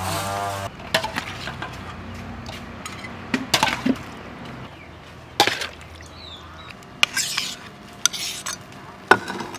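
A short rushing splash as mango strips tumble from a basket into a wok of liquid, then a metal utensil stirring sliced mango in a metal bowl, with sharp clinks against the bowl every second or two.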